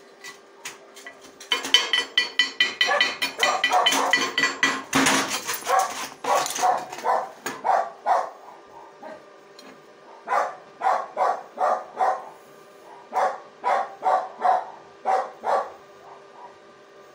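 A dog barking over and over: a quick run of barks for the first several seconds, a short pause, then a slower series of barks about two a second.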